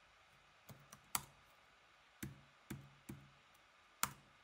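Computer keyboard keystrokes: about seven separate key presses spread out, not fast typing, with the sharpest ones about a second in and near the end.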